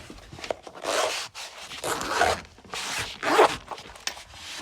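The zip of a case holding a mini plier set being pulled open in about three long rasping strokes, with smaller scrapes between them.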